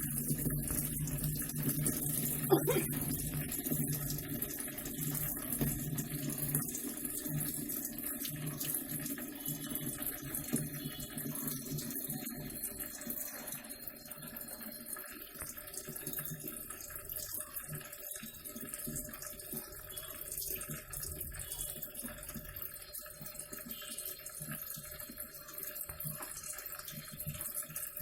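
Steady rush of water pouring into the tub of an LG WF-T7519RS top-load washing machine as it fills after starting. A low hum fades out over the first few seconds, and there is one sharp click about two and a half seconds in.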